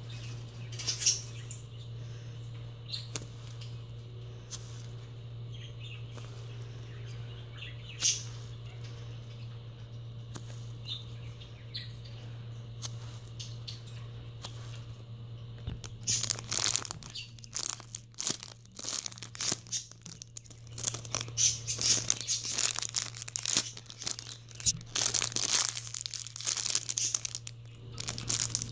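Hands squeezing and handling soft foam squishy toys: a few faint rubs and clicks at first, then from a little past the middle a long run of dense crinkling, crackling handling noise. A steady low hum runs underneath.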